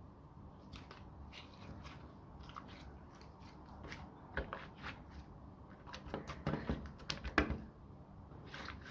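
Slime being squeezed and played with by hand, giving irregular small sticky clicks and crackles that come thickest in the second half.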